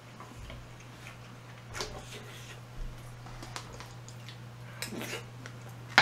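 Quiet eating sounds: a handful of scattered soft clicks and taps of utensils on dishes, over a low steady hum.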